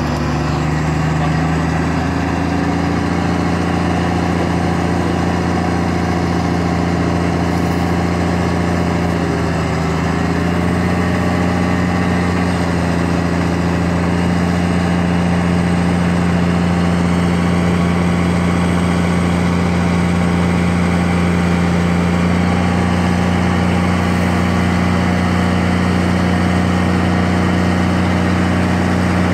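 Diesel engine of a hook-lift garbage truck running steadily while its hydraulics tilt a large roll-off container up to dump it; the low, even engine tone steps up slightly in pitch about ten seconds in.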